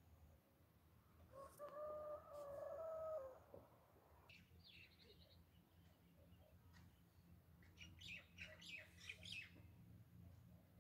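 Faint rural dawn birdsong. A rooster crows once for about two seconds, then small birds chirp: a short fast high trill, and a burst of quick chirps near the end.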